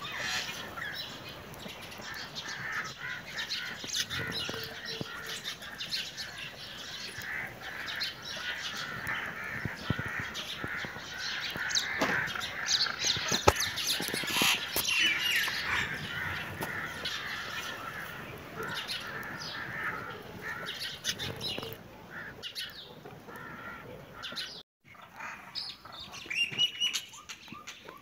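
Budgerigars chattering and warbling in a steady stream of short chirps, with wing flapping about halfway through. The chatter breaks off for a moment near the end.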